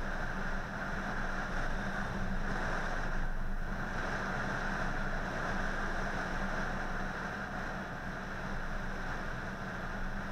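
A car driving on a wet road: steady engine hum with tyre noise on the wet tarmac, picked up by an action camera's built-in microphone.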